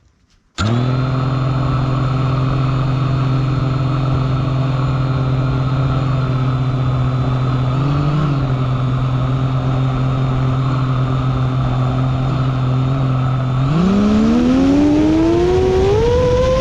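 FPV quadcopter's brushless motors spinning up abruptly from silence and holding a steady pitched hum at idle, with a brief wobble about eight seconds in. In the last few seconds the pitch rises steadily as the throttle comes up.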